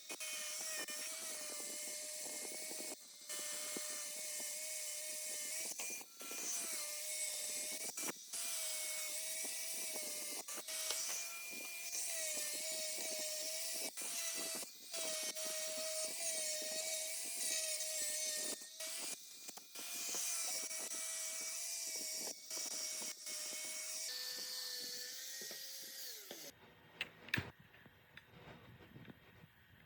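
A high-speed electric power tool running under light load, a steady high whine over a hiss, broken by many short cuts. Near the end its pitch sags and it winds down and stops, followed by a few light clicks and knocks.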